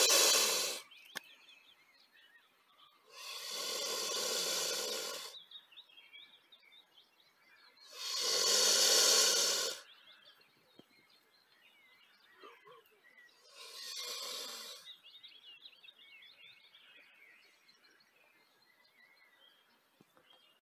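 Mute swan hissing in long breathy bursts, four of them spaced several seconds apart, the usual threat display of a swan warning off a close approach. Faint small-bird chirping fills the gaps.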